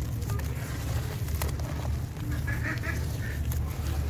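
Hands squelching and sloshing crumbled sand-cement chunks in a tub of water, with wet gritty clicks and a steady low rumble. Honking calls sound in the background about two and a half seconds in.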